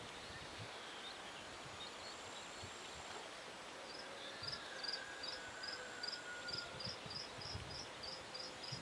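Quiet outdoor pond-side ambience with a faint steady hiss. About halfway through, an insect, cricket-like, starts a regular series of short high chirps, about three a second.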